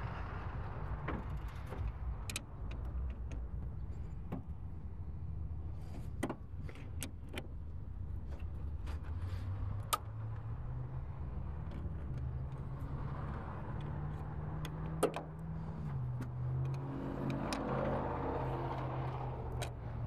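Scattered light clicks and knocks of a battery terminal clamp being fitted to a car battery, over a steady low hum.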